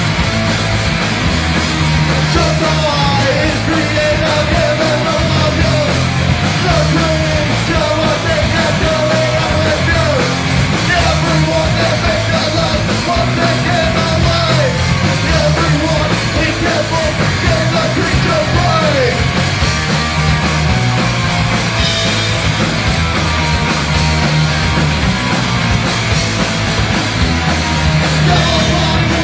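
Live punk rock band playing loud: electric guitars, bass guitar and a drum kit, with a singer yelling into a microphone over them.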